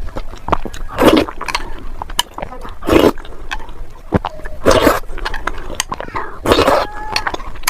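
Wet eating sounds: a loud slurp or bite about every two seconds, with small mouth clicks between.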